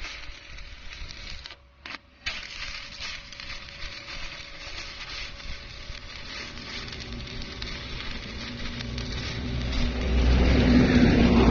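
Stick-welding arc crackling and sizzling as a hinge is welded, breaking off briefly about two seconds in and then striking again. From about halfway a low engine-like rumble with a steady hum builds up and is loudest near the end.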